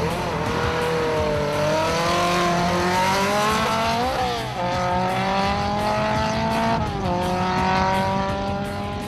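Drag-race launch of a tuned VAZ-2108 and a BMW saloon: engines revving hard as the cars accelerate, the note climbing through each gear and dropping at gear changes about four and seven seconds in. The sound fades near the end as the cars pull away down the strip.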